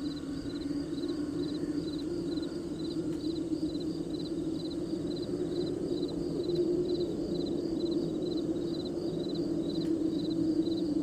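Crickets chirping steadily, about two chirps a second, over a louder low steady drone.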